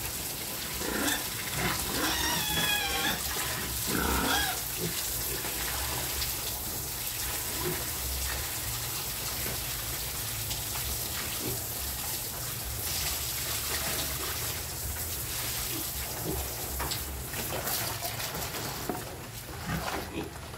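Water splashing steadily as a pig pen is washed out, with piglets giving a few wavering squeals in the first few seconds.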